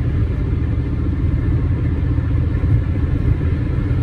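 Steady low rumble of a car's engine and tyres on the road, heard from inside the cabin while driving at speed.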